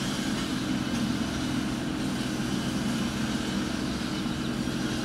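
Avant 760i mini loader's diesel engine running steadily under work with a low, even hum.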